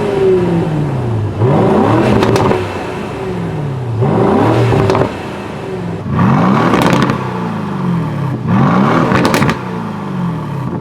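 Aston Martin sports-car engine blipped from idle at standstill, four quick revs about every two and a half seconds, each rising and falling back to idle. A few sharp cracks come from the exhaust near the tops of the revs.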